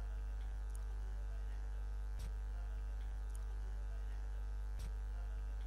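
Steady electrical hum with several fixed tones, unchanging throughout, with a couple of faint clicks around the middle and near the end.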